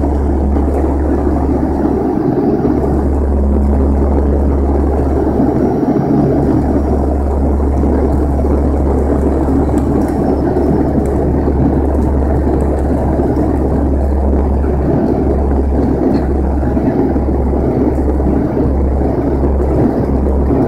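Cabin noise inside a Bombardier Dash 8-100 twin-turboprop airliner on descent: a loud, steady engine and propeller drone with a strong low hum and airflow rush. Near the end the low hum starts to throb about once a second.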